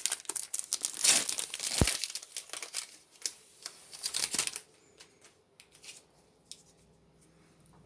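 Foil Pokémon booster pack wrapper crinkling and being torn open, a dense run of crackles and snaps that stops about four and a half seconds in, followed by a few faint ticks of cards being handled.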